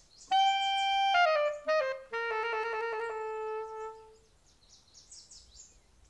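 Cartoon score music: a clarinet-like woodwind plays a short phrase that steps down in pitch, then holds a low wavering note that fades out about four seconds in.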